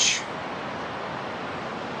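Steady rushing of the Colorado River's flowing water, an even hiss without a break.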